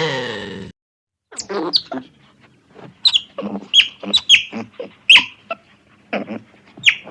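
Birds chirping: a quick run of short, high calls, each sliding sharply down in pitch, with lower calls between them. Before that, the end of a loud, long animal call cuts off suddenly a little under a second in.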